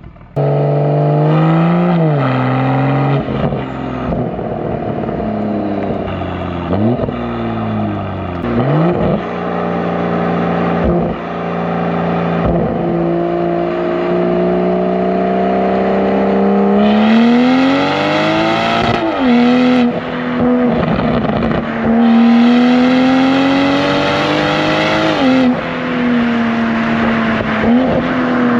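BMW M240i's B58 turbocharged inline-six through a valved sport exhaust on stock downpipes, heard right at the rear bumper: it pulls through several quick upshifts, the pitch climbing and dropping at each shift, settles into a steady cruise, then revs higher again in the second half.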